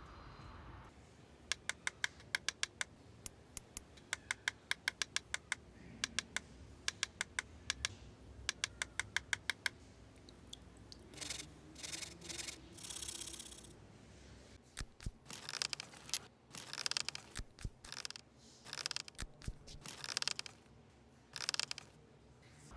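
Several quick runs of sharp clicks over the first ten seconds or so, then a series of short scraping strokes.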